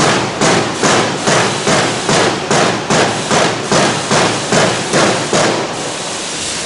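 Hammer blows on metal, a steady run of about two and a half strikes a second that stops near the end.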